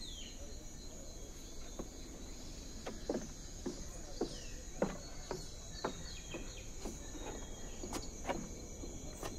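Outdoor jungle ambience: a steady high insect drone, with scattered short calls that each drop quickly in pitch and a few faint higher chirps.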